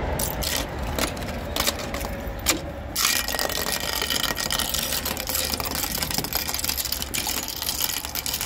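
Ice cracking and crackling: a few sharp separate cracks, then from about three seconds in a dense, continuous run of crackling.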